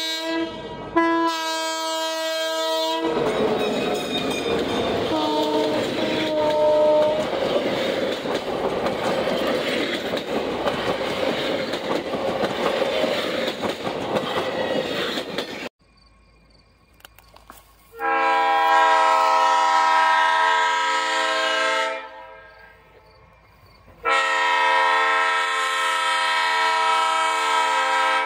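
Diesel locomotive air horn sounding a chord of several tones at once, then the loud, noisy rumble and clatter of a train running by, with a brief horn note partway through. After a sudden cut, the horn blows two long blasts about two seconds apart.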